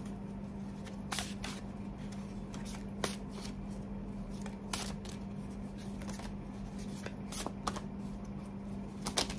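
A deck of oracle cards being shuffled by hand: scattered, irregular soft riffles and card clicks over a steady low hum.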